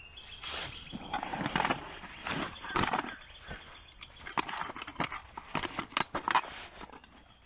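Irregular rustling, crinkling and short knocks of gear being handled, such as a cardboard box and camp stove parts being moved around.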